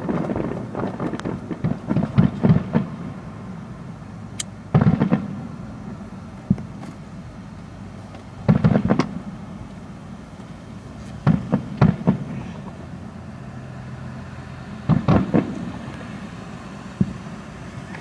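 Aerial fireworks exploding in the distance: sharp booms in clusters of two or three a few seconds apart, each with a rumbling echo after it.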